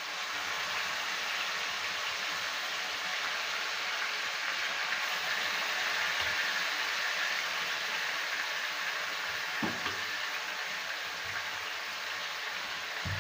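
Boiled grated carrots sizzling in hot ghee in a kadhai, a steady hiss, with a couple of light knocks later on.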